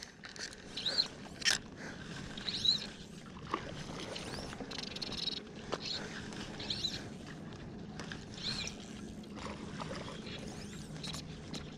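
Fly line being stripped in by hand through the rod guides, a short squeaky swish with each pull about every two seconds, with a few light clicks.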